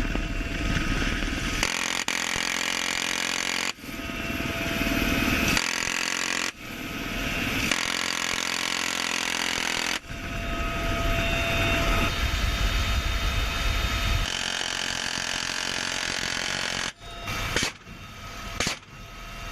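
Film action soundtrack: a rotary minigun firing in a fast, buzzing stream mixed with vehicle engines, with the sound changing abruptly every few seconds at the edits.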